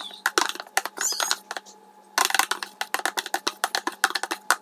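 Clear plastic storage box tipped, shaken and tapped over a tray to knock out the last of the cornstarch: a quick run of plastic clicks and knocks, with a short pause near the middle.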